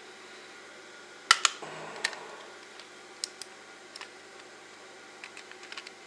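Hard plastic clicks and knocks from the Logitech MX mouse's shell being handled and pressed together. Two loud sharp clicks come a little over a second in, followed by a brief scraping rustle, then scattered lighter clicks with a quick run of small ones near the end.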